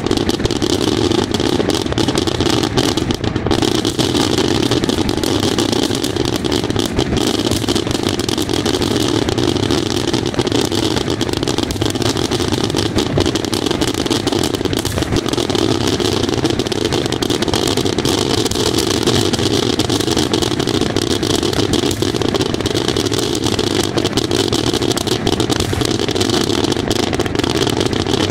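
Daytime fireworks going off in an unbroken, rapid barrage of small bangs, so dense that they run together into a steady crackle.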